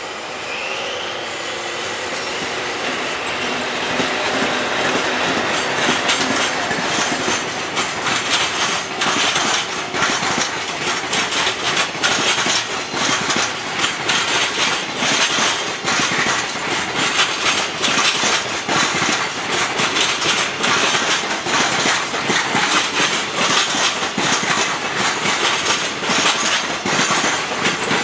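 Container freight train behind an EF81 electric locomotive passing close by: steady wheel rumble with a fast clickety-clack of wheels over rail joints as the wagons roll past, growing louder over the first few seconds and then holding.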